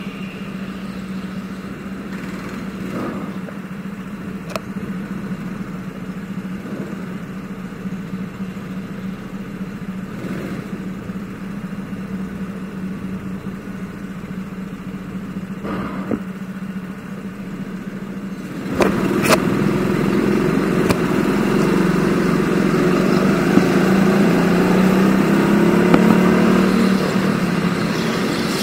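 Go-kart engine running at a steady pitch, then about two-thirds of the way through it gets suddenly louder and its pitch rises and falls as the kart is driven on the throttle. A few light knocks can be heard.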